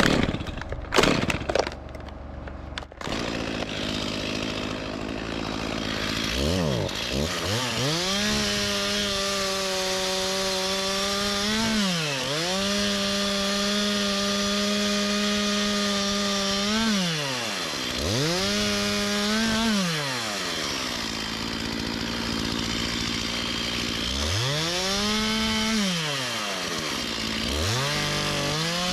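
A few sharp knocks, then a chainsaw revs up to full speed and holds there for long stretches while cutting wood. It drops back toward idle and revs up again several times between cuts.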